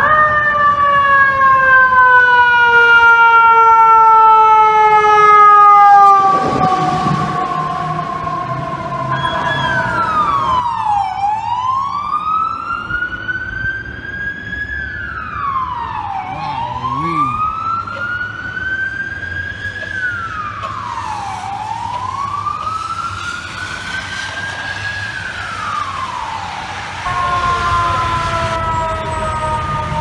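FDNY emergency vehicle sirens. First comes the loudest part, a fire truck siren with several tones sliding slowly down in pitch. Then an ambulance-type wail rises and falls about every five seconds, and near the end another siren slides down in pitch.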